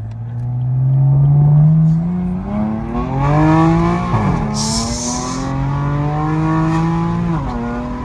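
BMW M3 F80's twin-turbo 3.0-litre inline-six with an equal-length exhaust accelerating hard, its pitch climbing through a gear, then dropping at an upshift about four seconds in and climbing again to a second upshift near the end. A short hiss follows just after the first shift.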